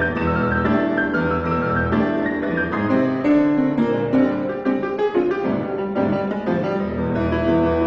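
Piano music: a busy passage of many notes struck in quick succession, with low bass notes underneath.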